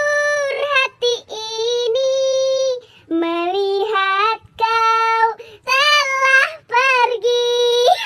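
A high-pitched voice singing a tune in held, fairly steady notes, phrase after phrase with short breaks between them.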